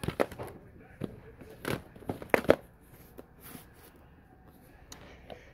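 Plastic DVD cases being handled: a quick run of clicks and clacks in the first few seconds, the loudest about two and a half seconds in, then a couple of faint ticks near the end.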